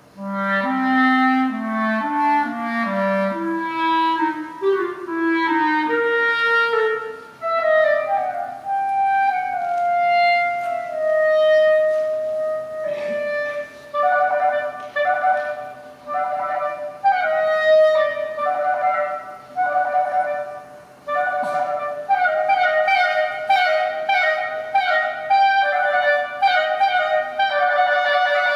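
Solo clarinet played live: a melody climbing from low notes up to long held high notes, then, from about halfway, quick runs of short repeated notes.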